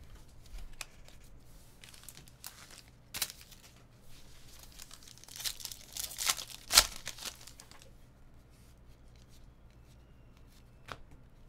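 Trading-card pack wrapper being torn open and crinkled as cards are handled, with a louder stretch of tearing and crackling just past the middle.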